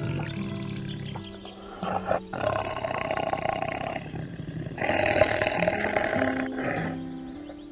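Tiger roaring twice, each roar about two seconds long, over background music.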